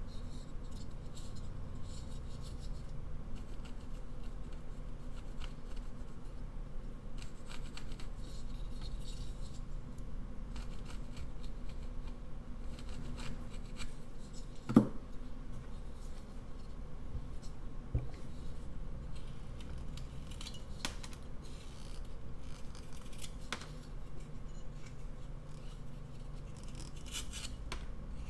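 Mechanical pencil scratching guide lines onto a basswood carving blank in short, faint strokes, with one sharp knock about fifteen seconds in and a smaller one a few seconds later. Near the end a carving knife starts cutting into the wood.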